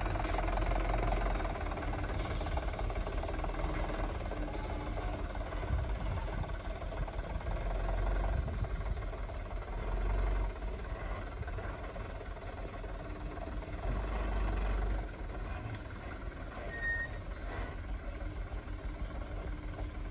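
Diesel engine of a Mitsubishi light truck heavily loaded with sugarcane, running at low speed as it pulls away over a dirt track. The engine note swells twice, around the middle and again about three-quarters of the way through.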